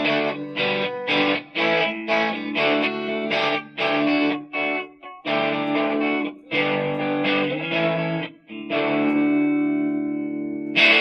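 Electric guitar played through a BOSS Blues Driver BD-2 overdrive pedal, giving a mildly distorted tone. It plays short chopped chords in a rhythm of about two a second, then longer chords, one of which rings out and fades before a last sharp stab near the end.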